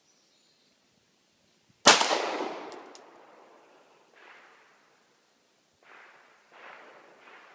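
A single 9mm pistol shot from a Glock 26 about two seconds in, its report trailing off over roughly a second. Four much fainter short knocks or clatters follow later on.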